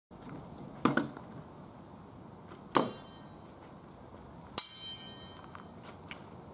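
Steel swords striking wooden round shields and each other in sword-and-shield sparring: a quick double knock about a second in, a sharp clang near three seconds, and another clang with a metallic ring later on.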